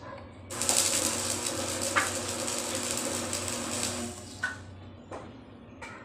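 Arc welding on a steel pipe: a steady crackling hiss with a faint hum that starts suddenly about half a second in and cuts off about three and a half seconds later, followed by a few light knocks.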